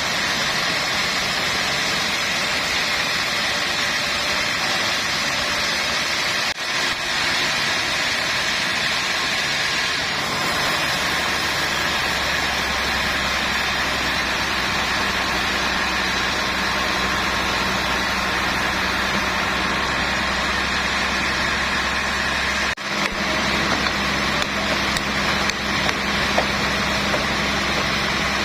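Sawmill machinery running steadily with a continuous mechanical noise. A low hum joins about ten seconds in.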